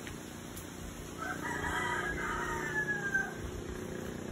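A rooster crowing once: a single crow of about two seconds that starts a little over a second in and trails off, falling in pitch at its end, over a faint steady low hum.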